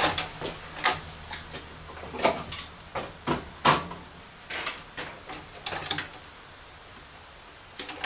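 Irregular clicks and knocks of circuit boards being pulled loose and handled against a monitor's metal chassis. They thin out after about six seconds.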